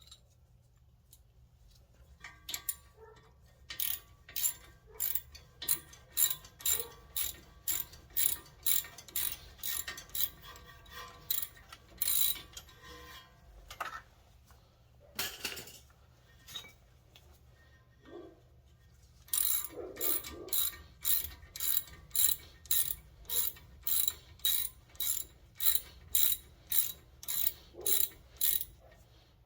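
Hand ratchet wrench clicking at about two clicks a second as it turns a brake bolt, in two long runs with a short break and a couple of knocks near the middle.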